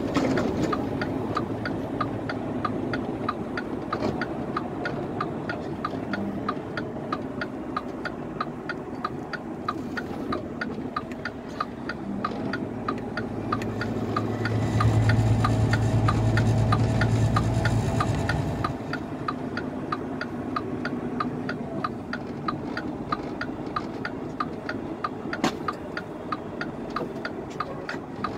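Inside the cab of a 2020 Mack Anthem truck on the road: a steady engine and road drone with an even, fast ticking of about three ticks a second. A deeper hum swells from about halfway through and lasts some four seconds.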